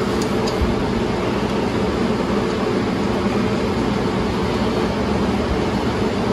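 Steady mechanical hum with an even rushing hiss underneath, like a fan or ventilation unit running, with a couple of faint clicks about half a second in.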